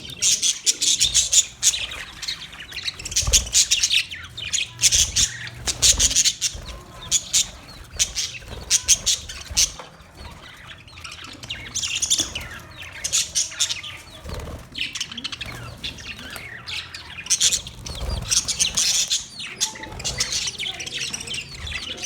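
Budgerigars chirping and chattering in dense high-pitched bursts, with occasional squawks.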